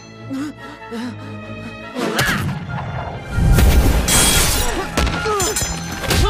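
Dramatic background music under fight sound effects. It is quieter for the first two seconds, then breaks into loud blows and a crash about two seconds later.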